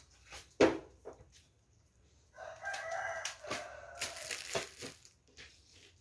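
A rooster crowing once, a drawn-out call of about two and a half seconds that starts a little after two seconds in. A single sharp knock sounds near the start.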